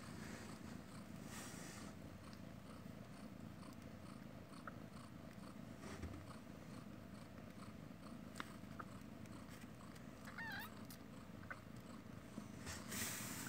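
Mother cat purring steadily while nursing her newborn kittens, a faint low rumble. There is a brief faint high squeak about ten seconds in.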